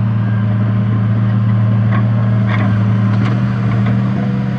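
An engine running steadily at low revs, a constant low hum, with a few faint ticks in the middle.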